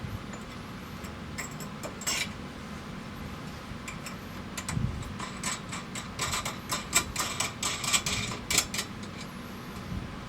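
Steel wrenches clicking and clinking against a bolt and the steel bracket as the bolt is worked in: a couple of clicks, then a quick run of sharp metal clicks in the second half, over a steady low hum.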